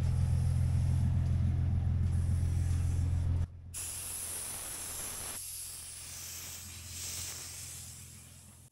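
Vehicle engine droning steadily inside the cab until a sudden cut about three and a half seconds in. Then a steady hiss of air escaping from a tire valve as the tires are aired down for the trail.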